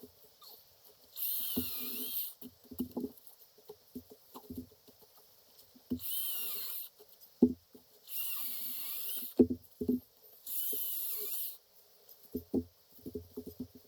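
Makita DUC405 36-volt cordless chainsaw run in four short bursts of about a second each, a high rushing chain noise with a motor whine that wavers in pitch as it cuts. Scattered knocks and thumps come in between the bursts.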